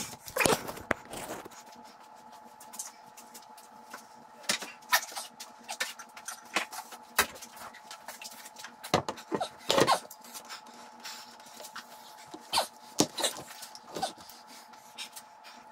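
Scattered knocks and clunks of a heavy power feeder being set down and shifted on a metal table saw top, over a faint steady hum. The loudest knocks come about nine to ten seconds in and again near the end.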